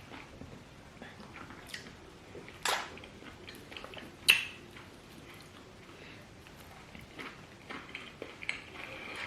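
Quiet eating sounds at a meal of banku and okra soup: chewing with a few sharp clicks of dishes or cutlery, the loudest about four seconds in.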